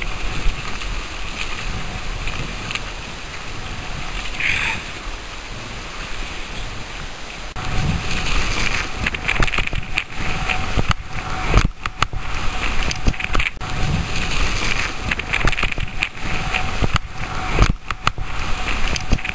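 Wind rushing and buffeting over the microphone, with snow scraping and hissing under a rider on a fast downhill run; it grows louder and rougher about halfway through.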